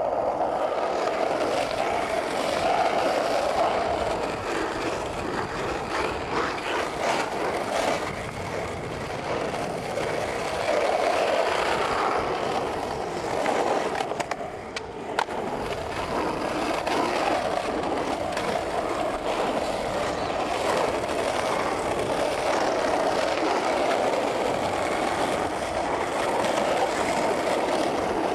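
Skateboard wheels rolling over asphalt: a steady rumble, with a brief drop and a sharp click about halfway through.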